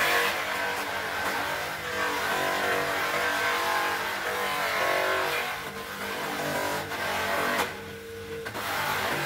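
Bench grinder fitted with a buffing wheel, its motor running while a wooden cricket bat is rubbed against the spinning wheel. The sound dips for about a second near the end.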